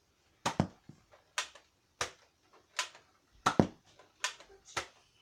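Nerf Lawbringer blaster being worked by hand: a run of about ten sharp plastic clicks and knocks at an uneven pace, two of them loud double knocks about half a second in and about three and a half seconds in.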